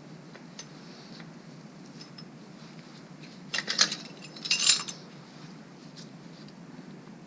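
Metal hand tools clinking and clattering against each other and the engine as work begins on the teardown: scattered light clicks, with two louder bursts of clinks around the middle, over a steady low hum.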